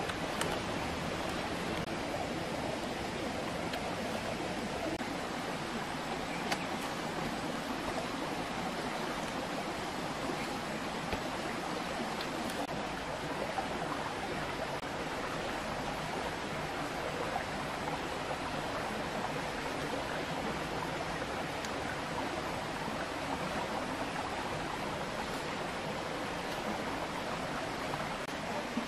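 Steady rushing of flowing water from a forest stream, with a few short clicks now and then.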